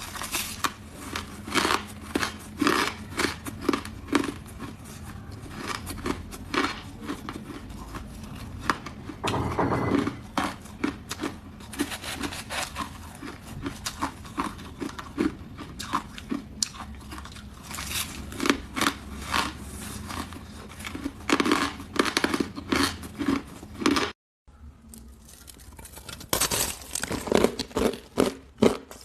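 Hard ice being bitten and chewed close to the microphone: a dense, irregular run of sharp, crackling crunches. The sound drops out briefly about twenty-four seconds in, then the crunching carries on.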